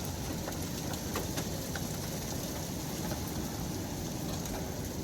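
Steady heavy rain falling during a thunderstorm, an even hiss with a few faint ticks of drops hitting nearby surfaces.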